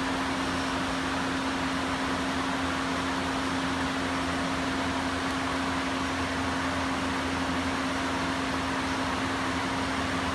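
Thermoforming machine standing by and running, a steady hum: one constant low tone under an even hiss, unchanging throughout.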